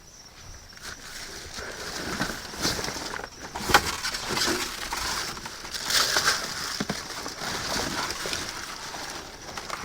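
Rustling and crinkling of plastic bags and packaging being rummaged through in a dumpster, with one sharp knock about four seconds in.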